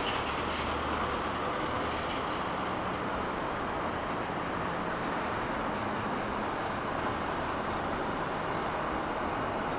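Electric commuter train running on the rails: a steady rumble and wheel-on-rail noise with no speech.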